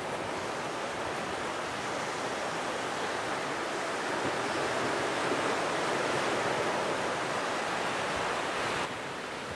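Heavy storm surf breaking on a beach: a continuous rushing wash of water that swells toward the middle and eases slightly near the end.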